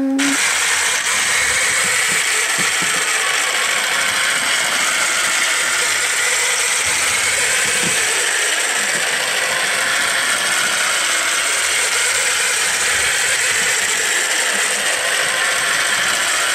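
Big 3D-printed legged robot's leg mechanisms running steadily as it moves its three legs in a dance, a continuous dense mechanical clatter.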